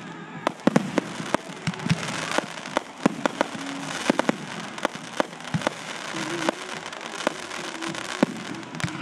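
Fireworks going off: many sharp pops and bangs in quick, irregular succession over a steady crackling hiss.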